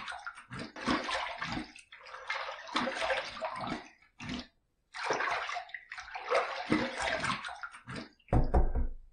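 Water splashed onto the face from the hands at a sink in a series of irregular bursts with short pauses, rinsing shaving lather off between razor passes. A heavier, deeper splash comes just after 8 seconds.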